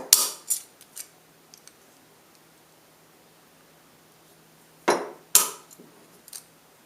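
Tin snips cutting through the thin steel sidewall of a tuna can: a few sharp metallic snips in the first second, then two or three more from about five seconds in, with quiet in between.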